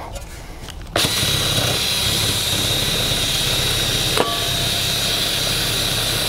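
Cordless drill spinning an abrasive brush wheel against a gumball machine's painted body, scuffing off the gloss so new paint will adhere. The steady scraping whir with a high whine starts about a second in, with a brief knock around four seconds.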